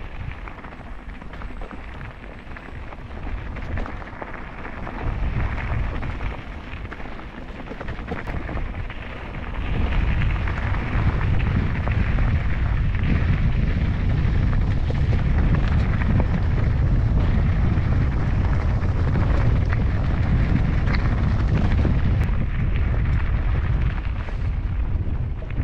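Wind buffeting a camera microphone on a moving mountain bike, over the rolling noise of the bike on the trail; the wind rumble grows much louder about ten seconds in and stays so.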